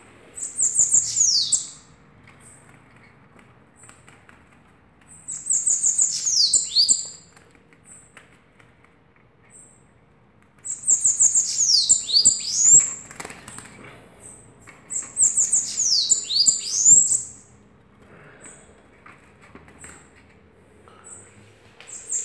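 Caged bananaquit (sibite) singing: four short, high-pitched songs about five seconds apart, each a rapid run of notes ending in falling slurs, with thin single chips between them. A fifth song starts near the end.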